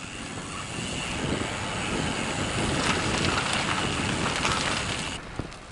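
Wind rushing over the camera microphone, with tyre noise from a bicycle rolling on a wet, gravelly lane. It builds over the first couple of seconds, holds steady, and cuts off abruptly about five seconds in.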